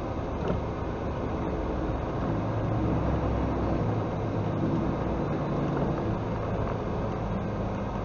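Semi truck's diesel engine running steadily at cruise, heard from inside the cab, with the hiss of tyres on a wet highway.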